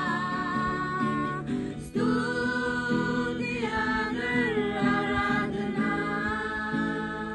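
A group of young people singing together to an acoustic guitar, holding long notes, with a brief break about two seconds in.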